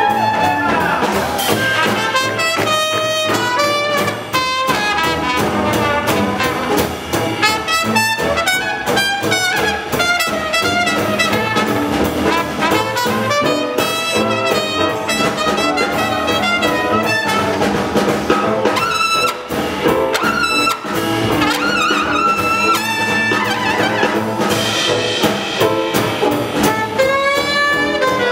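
A live swing jazz band playing an up-tempo tune: a horn section of saxophones, clarinet and trumpet over drum kit, double bass and guitar, with a steady driving beat.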